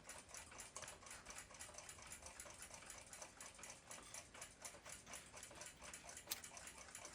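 Faint, quick ticking of a 1949 German flip clock's movement, with one sharper click about six seconds in.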